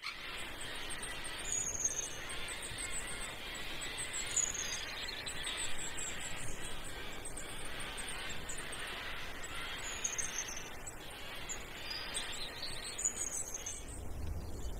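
Forest ambience of birds calling: high chirps and short falling whistles that repeat every few seconds over a steady hiss. A low rumble comes in near the end.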